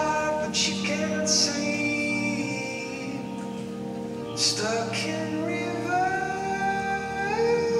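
A song with sung vocals over instrumental backing, slow held notes sliding between pitches, played over an auditorium's sound system from a projected video's soundtrack.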